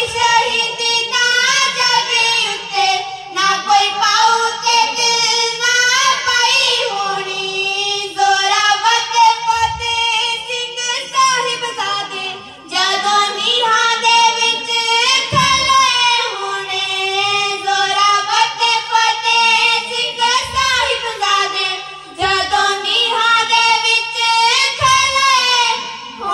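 Children's voices singing kavishri, Punjabi ballad singing, in long held phrases through a stage sound system, with a short break about halfway and a few dull low thumps.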